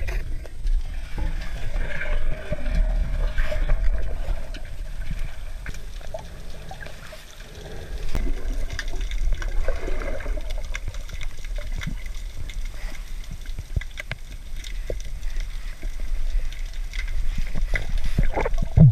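Underwater sound in shallow, moving sea water: a steady low rumble of water movement with gurgling and many small scattered clicks and crackles. A louder single knock comes right at the end.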